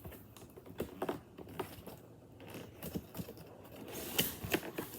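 Scattered soft clicks, taps and rustles of hands working at a toy's box to get it open, with a few sharper clicks near the end.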